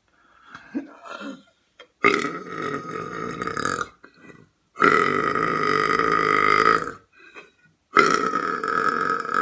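A person belching: three long, loud belches of about two seconds each, with short pauses between them; the third is still going at the end.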